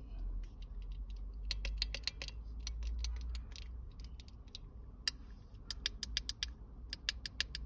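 Fidget cube click buttons being pressed repeatedly, in quick runs of sharp plastic clicks.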